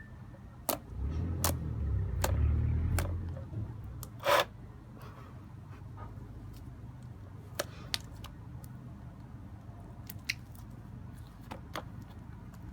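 Slime that is not butter slime being stretched and squeezed by hand, giving scattered sharp clicks and pops with a louder pop about four seconds in, over a low rumble of handling in the first few seconds.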